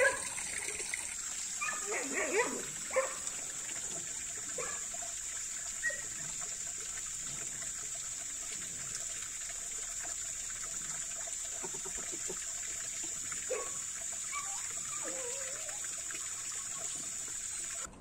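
Farmyard ambience: short animal calls in the first few seconds and again a little past the middle, over a steady high-pitched hiss.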